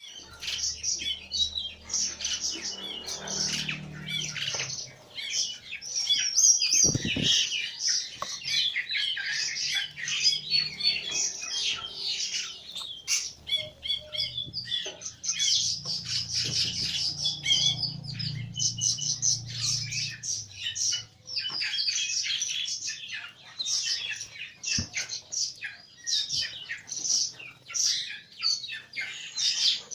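Birds chirping and squawking in a dense, rapid, continuous chatter at feeding time.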